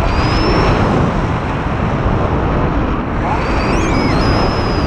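Steady rush of wind buffeting the microphone of a pole-held action camera on a tandem paraglider in flight, with faint thin whistles wavering over it, most clearly in the last second or so.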